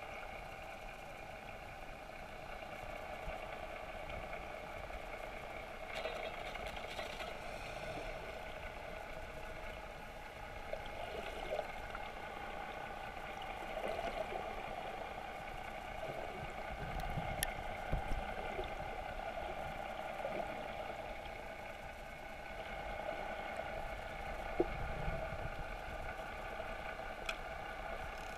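Underwater ambience picked up by a camera below the surface: a steady muffled hum and water noise, with a few faint clicks.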